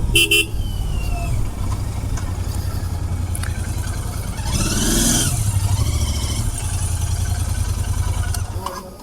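Royal Enfield Interceptor 650's parallel-twin engine running steadily at low speed, then switched off shortly before the end. About halfway through, a brief sound rises and then falls in pitch over it.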